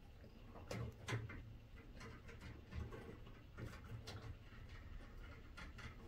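Faint clicks and small metallic ticks of slip-joint pliers gripping and twisting stripped copper wire ends together into a splice, with a few sharper clicks about a second in and again around three to four seconds.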